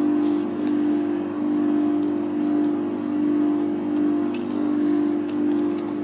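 Steady, fairly loud machine hum that swells and fades slightly a little faster than once a second, with a few faint light clicks of a metal lock pick being handled and slid into the keyway of a Master Lock Excell disc padlock.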